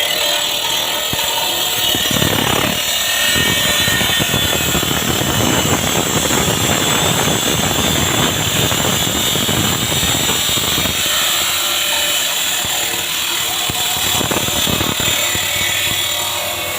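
Hitachi 405 stone-cutting saw with a 5 hp electric motor running, its blade cutting: a loud, continuous grinding whine, fuller and rougher from about two seconds in until about eleven seconds, then lighter.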